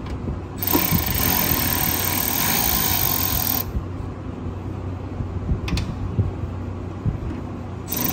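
Milwaukee Fuel cordless ratchet whirring as it backs a screw out of a riding lawn tractor's fuel tank. One run of about three seconds starts about half a second in, and a second run starts near the end.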